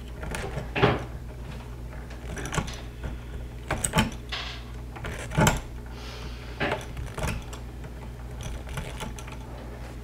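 Lineman's pliers gripping and twisting bare copper ground wires together: irregular metal clicks and scrapes spread over several seconds.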